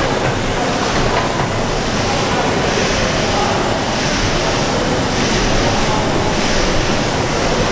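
Horizontal compound steam mill engine "Victoria" running steadily, a continuous mechanical clatter and hiss with a soft rhythmic pulse about once a second.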